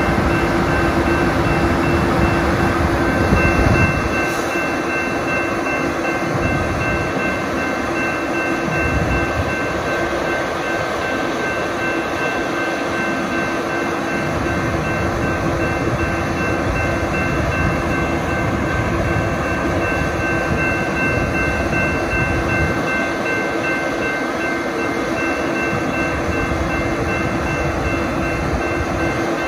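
A railroad grade-crossing warning bell ringing steadily over the diesel engine of a Brandt road-rail truck moving slowly along the track. The engine's low rumble is heavy for the first four seconds, then eases off.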